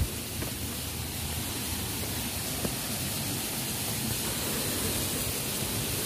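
Steady rush of a mountain stream flowing over rocks, with one sharp thump right at the start.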